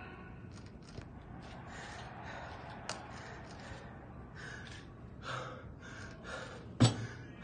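A man breathing hard in gasps and heavy exhalations, winded from exertion just after a wrestling match. Near the end there is one sharp thump, the loudest sound.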